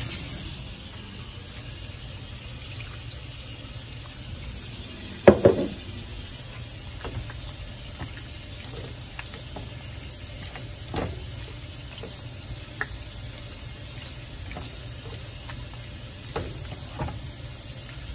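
Kitchen tap running into a stainless steel sink, cut off about half a second in. Then a steady low hum with scattered clicks and knocks of a utensil against a pan, the loudest a ringing clang about five seconds in.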